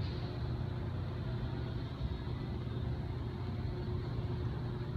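Lagoon 450 catamaran's inboard diesel engines running steadily as the boat motors slowly out of harbour, a constant low hum with a faint higher drone over it.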